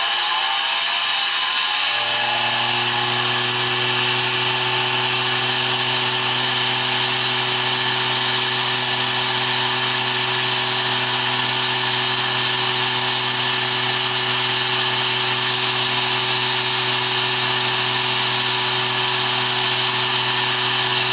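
Mini milling machine climb milling: the spindle runs and the end mill cuts metal in a steady, loud whine and hiss. A steady low hum joins about two seconds in and runs through the pass.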